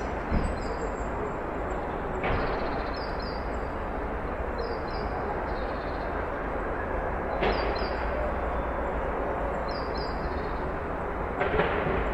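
Backyard ambience: a steady bed of outdoor noise with a low hum, a small bird giving short high chirps, mostly in pairs, every couple of seconds, and four sharp knocks spread through it.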